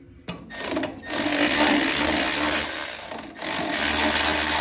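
Milwaukee cordless electric ratchet spinning a 3/4-inch socket to back out a bolt. The motor runs from about one second in, dips briefly about three seconds in, then runs again.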